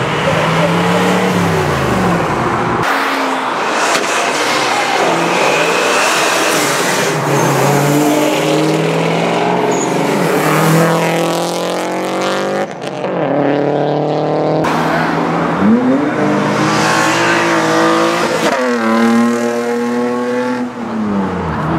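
A succession of different cars accelerating hard away, one after another, each engine's pitch climbing and dropping back as it revs through the gears, with sudden switches from one car to the next.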